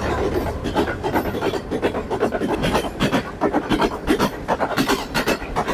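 Pakistan Railways passenger train running through the station without stopping, its coaches passing close by: a dense, rapid clatter of wheels on the track.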